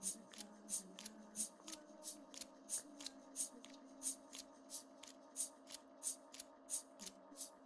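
Rhythmic dry rattling percussion, struck and shaken on found natural objects, about three beats a second with every other beat louder. A quiet held low drone sounds underneath.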